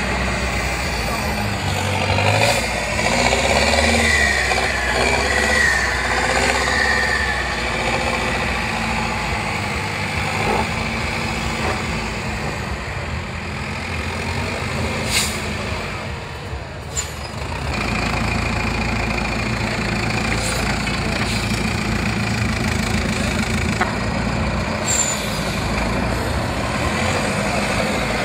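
Engine of a competition trial truck working through mud and sand, rising and falling with the throttle. It drops off briefly just past the middle, then runs steadily again, with a couple of sharp knocks in between.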